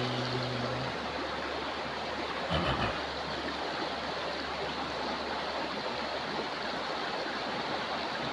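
A man's held sung note ends about a second in, giving way to a steady rushing noise with a brief knock near three seconds.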